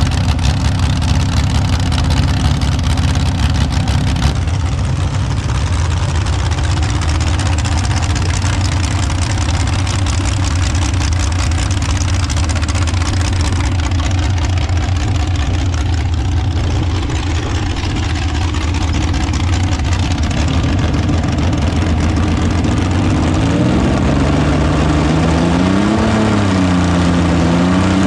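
An engine running steadily with a deep, even tone, its pitch rising and falling a few times in the last several seconds as it is revved.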